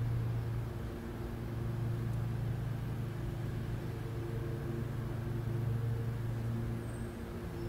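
Steady low mechanical hum with a few faint steady tones above it, dipping slightly about a second in and again near the end.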